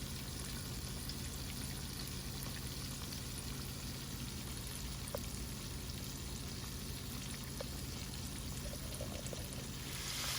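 Chicken wings frying in hot grease: a steady sizzle with a few faint pops, getting louder near the end.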